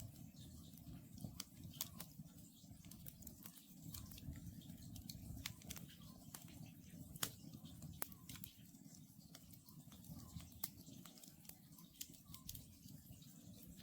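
Wood campfire crackling, with irregular sharp pops and snaps over a low steady rumble of the burning logs.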